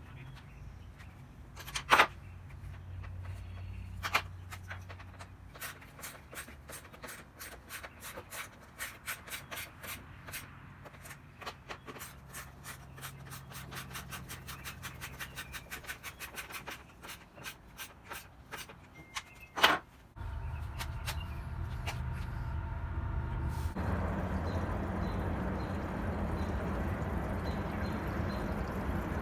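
Workshop sounds of hand tools at work on the dirt bike: two sharp knocks and a long run of quick, evenly spaced clicks. About two-thirds in this gives way to a steady low hum, and then a steady rushing noise.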